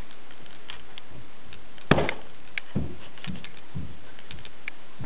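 A single sharp thump about two seconds in, followed by three or four softer, duller thuds and a few faint clicks.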